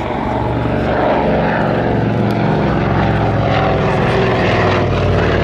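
Avro Anson's twin radial piston engines and propellers running steadily in flight, growing a little louder in the first second.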